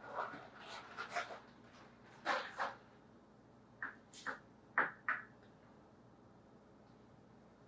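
Short clicks and knocks of kitchen utensils being handled while popcorn kernels are measured out, about a dozen, several in quick pairs, stopping after about five seconds.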